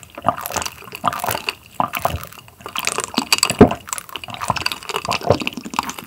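Close-miked drinking from a glass mug: a run of gulps and swallows with wet liquid sounds, several a second.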